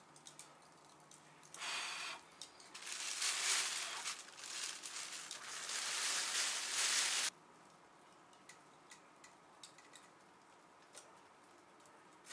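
Small fire in a tin can under a wire grill hissing loudly as it pours out thick white smoke: a short hiss, then a longer steady one of about four and a half seconds that stops abruptly. A few faint ticks follow.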